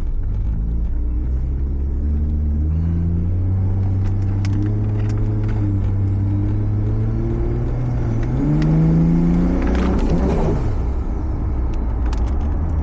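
Toyota Supra's engine running under way, heard inside the cabin. Its pitch climbs as it revs up about eight seconds in, then drops away suddenly around ten seconds, which the driver takes for hitting some type of cut.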